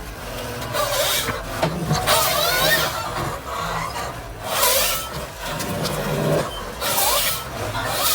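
Nisula 555H harvester head working on its carrier machine: a steady low machine sound with a whine that rises and falls, and hissing bursts about every two and a half seconds.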